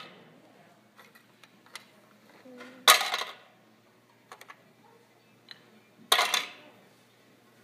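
Large plastic Lego Duplo bricks dropped into a plastic tray, clattering twice about three seconds apart, with a few light clicks of bricks being handled in between.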